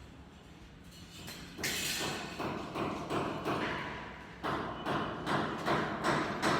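A steady run of sharp knocks, about three a second, starting about a second and a half in and growing louder.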